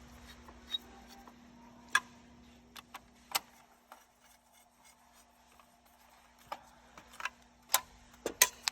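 Plastic control-panel covers being handled and fitted into place: a series of sharp clicks and taps at uneven intervals, bunched more closely near the end, over a faint steady hum.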